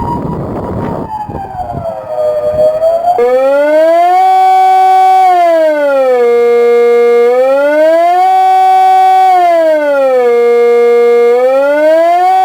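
1985 Kockumation TK-150 mobile siren sounding the Swiss general alarm test. It starts abruptly about three seconds in and then rises and falls steadily, completing one up-and-down cycle roughly every four seconds and holding briefly at the top and bottom of each sweep. Before it starts, a Tyfonic Delta 8 siren wails faintly in the background, with wind on the microphone.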